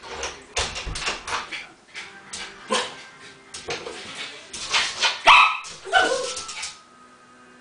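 Small Maltese dog barking and yelping in quick succession, with a few bending, whimper-like cries a little past the middle: the distress barking of a dog just left alone behind a closed door.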